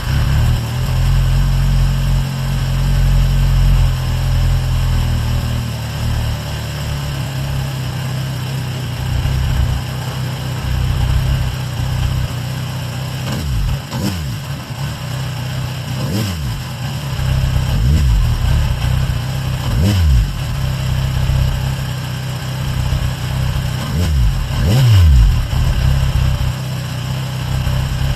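Kawasaki Ninja 1000's inline-four engine idling just after start-up, blipped briefly about six times in the second half. It runs without its earlier mechanical rattle, which the owner guesses is the cam chain tensioner having taken up a notch.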